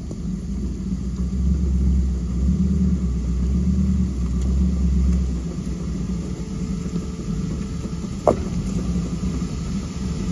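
A Jeep's engine rumbles low and steady as it crawls over rocks, a little louder for the first half and then easing off. About eight seconds in there is a single sharp knock.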